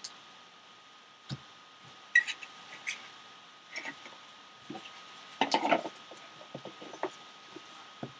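Cardboard trading-card box being opened by gloved hands: scattered sharp clicks and taps of stiff cardboard, with a denser burst of rubbing and scraping as the sleeve slides off about five and a half seconds in.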